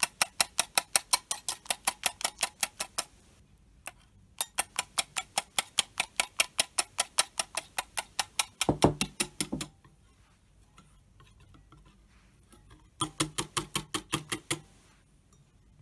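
Wire balloon whisk beating hand cream in a white glass bowl, the wires clicking against the bowl about five times a second in three spells with short pauses between. The cooling mixture is starting to thicken toward whipped cream.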